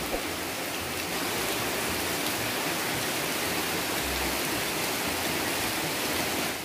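Heavy rain pouring steadily on palm trees, garden foliage and a clay-tile roof, an even hiss.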